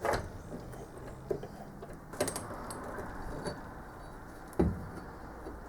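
A few scattered knocks and metallic clinks as small metal tools and parts are handled and set down, one with a brief high ring and a duller thump near the end.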